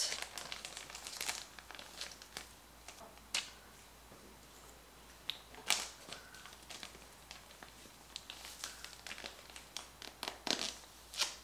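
Faint, intermittent crinkling of a thermal hair-treatment wrap's bag being twisted and cinched tight around the head and fastened with its sticker tab, with a few sharper crackles scattered through.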